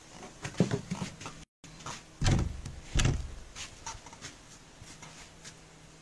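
A few sudden knocks and bumps, the two loudest about two and three seconds in, with lighter clicks between.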